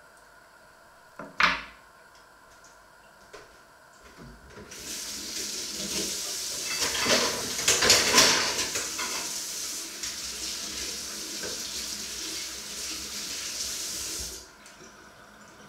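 A metal fork clinks down onto a wooden cutting board about a second in. Then a kitchen tap runs water into a sink for about ten seconds, loudest partway through, and is shut off abruptly.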